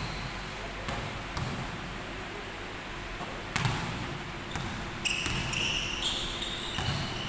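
A basketball bouncing with a few sharp thuds on an indoor court floor as it is dribbled. From about five seconds in come high squeaks, with the pitch stepping up, as players' sneakers skid on the court.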